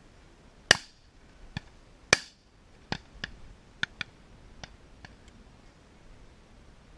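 Two loud shotgun shots about a second and a half apart, each with a short echo. Several fainter, sharper cracks follow over the next three seconds.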